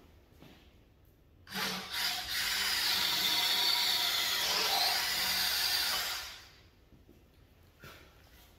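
Cordless drill boring a 3/4-inch hole into a pine beam with a threaded-tip bit. It starts about a second and a half in, runs steadily for about five seconds, then stops.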